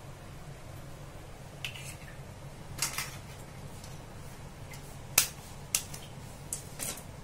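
Thick coconut kurma gravy simmering in a steel pot, with a handful of sharp pops scattered over a steady low hum; the loudest pop comes about five seconds in.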